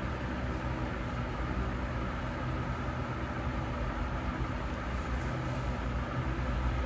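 Hair dryer blowing steadily on damp hair: an even rushing noise with a low hum.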